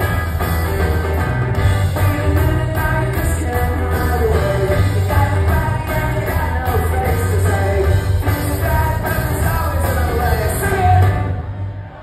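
Rock band playing live, with electric guitar, bass, keyboards and drums and a man singing, heard from the audience in a large hall. The band stops short near the end and the sound drops away.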